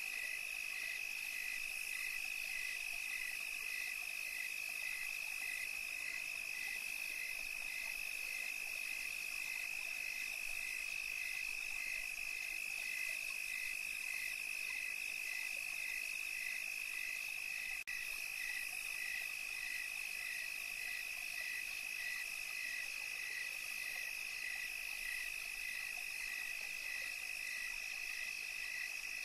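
Steady night chorus of insects and frogs: a continuous high trill with a shorter note repeating evenly, about twice a second, over it.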